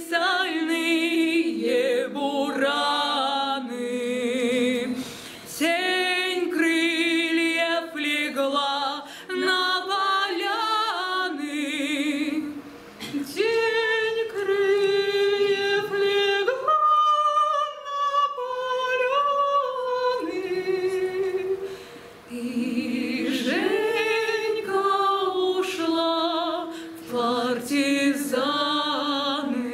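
Singing in long held phrases with wide vibrato, broken by short pauses between phrases.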